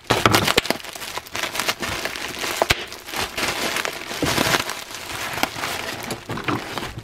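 Plastic bubble wrap crinkling and crackling as it is handled and pulled open to unwrap a fishing reel, a dense run of small crackles.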